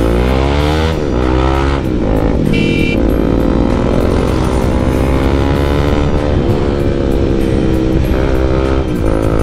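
Bajaj Pulsar NS200 single-cylinder engine through a loud exhaust, revving hard while riding: the pitch climbs in the first second, drops back at a gear change or two, then holds and rises again.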